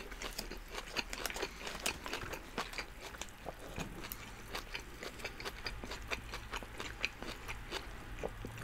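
Two people biting and chewing doner kebab wraps close to the microphone: an irregular run of small wet mouth clicks and crunches from the crunchy vegetables in the filling.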